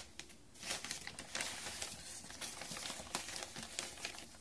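Packaging crinkling and rustling as a wrapped plant cutting is unwrapped by hand: irregular crackles and rustles that stop near the end.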